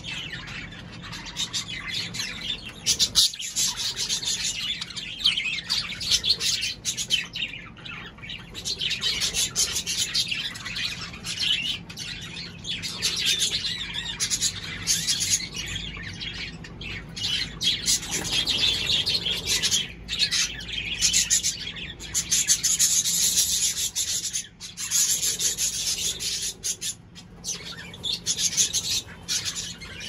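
A flock of caged birds, cockatiels among them, chattering and chirping continuously in a dense, overlapping din that swells and dips.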